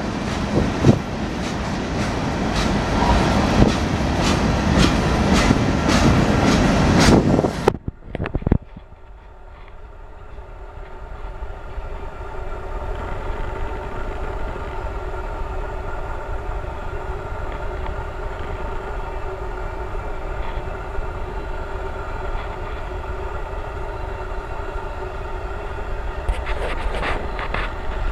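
Freight cars of a manifest train rolling past, wheels clicking over rail joints. About eight seconds in the sound drops abruptly to a quieter steady rumble with a faint steady hum, and the clicking comes back near the end.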